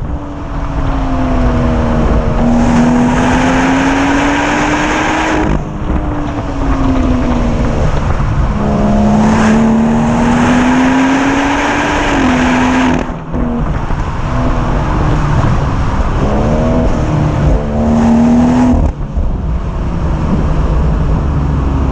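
BMW M140i xDrive's turbocharged straight-six on its stock exhaust, driving with the engine note rising and falling. There are abrupt breaks about 5½, 13 and 19 seconds in, like gear changes, and a steady note near the end.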